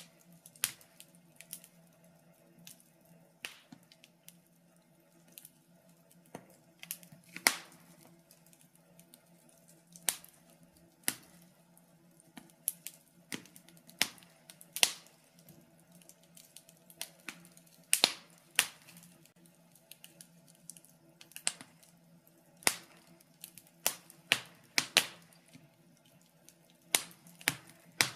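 Wood fire in a fireplace crackling: irregular sharp pops and snaps, a few much louder than the rest, over a faint steady low hum.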